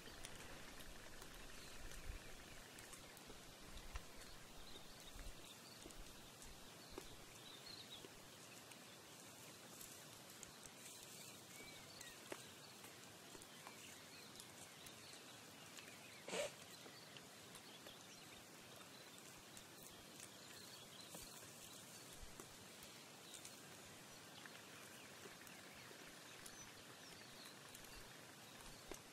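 Near silence: faint savanna ambience with a few faint high chirps, broken once about halfway through by a single brief, louder sound.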